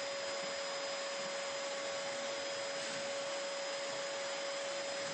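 Dyson DC28 Animal bagless upright vacuum cleaner running steadily: an even rush of air with a constant mid-pitched motor whine.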